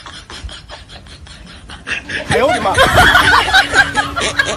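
A fast ticking beat, then from about two seconds in loud snickering laughter over a steady held note.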